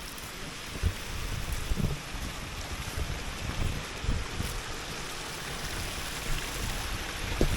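Steady rush of water from a woodland stream and small waterfall, with a few short dull low thumps.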